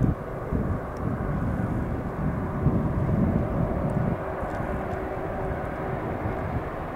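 Jet airliner engines running at close range, a steady noisy rumble, with gusty wind buffeting the microphone during the first half.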